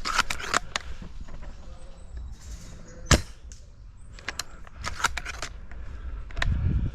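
Airsoft gunfire: scattered sharp clicks and snaps of airsoft guns firing, with one much louder crack about three seconds in. A dull thump comes near the end.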